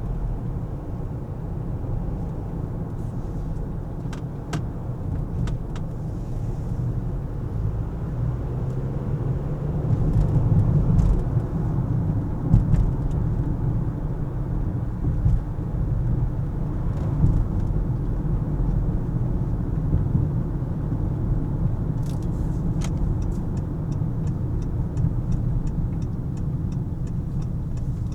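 Car driving through city traffic: steady low road and engine rumble, a little louder around ten to thirteen seconds in, with a run of faint rapid ticks near the end.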